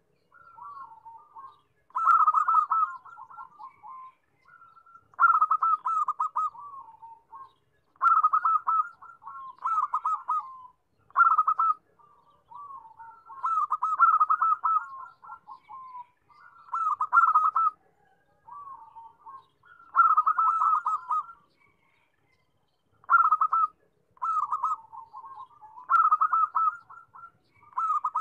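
Zebra dove (perkutut) cooing: a series of short, rapid staccato phrases of rippling coos, repeated every two to three seconds.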